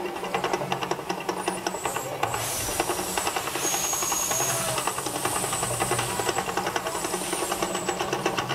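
The Mirage volcano attraction erupting: a rushing hiss of its water jets and gas flame bursts comes in about two seconds in and holds. A fast, dense rattling rhythm runs under it throughout.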